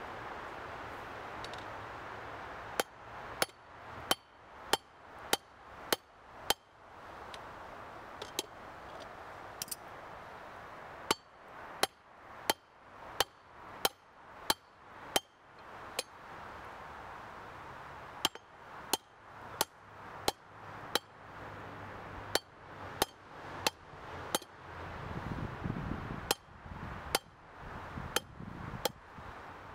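Hand hammer striking hot steel bar stock on a small anvil, drawing out a taper: sharp ringing clangs in runs of several blows, a little over one a second, with short pauses between runs. A steady rush of air, most likely the forge's blower, carries on underneath.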